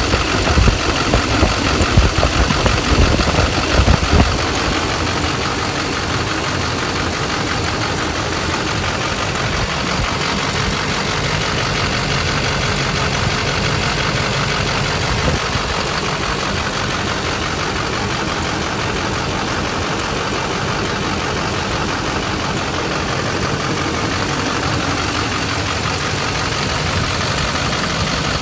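6.6-litre Duramax V8 turbodiesel idling, an uneven run that the owner takes for a misfire. Louder for the first four seconds or so, then steady.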